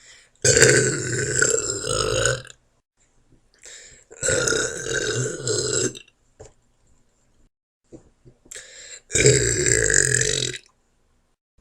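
A woman burping deliberately: three long, loud burps, each lasting one and a half to two seconds, with short quiet gaps between them.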